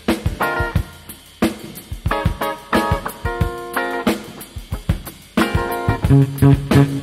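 Jazz-funk band in a studio recording: electric guitar chords and lines over a drum kit, with electric bass. The low bass notes grow loud and punchy about five and a half seconds in.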